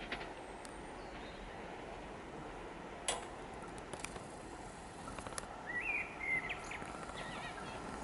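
Faint steady outdoor hiss with a few short clicks, and a brief bird chirp about six seconds in.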